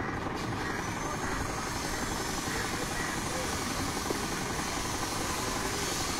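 Wind buffeting the microphone: a steady rushing noise with an uneven low rumble underneath.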